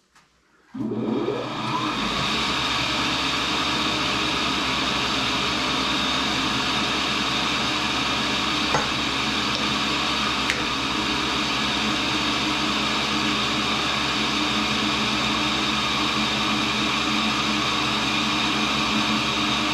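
Cincinnati tool and cutter grinder switched on: the wheel-head motor starts about a second in, spins up and then runs steadily with the diamond cup wheel turning free.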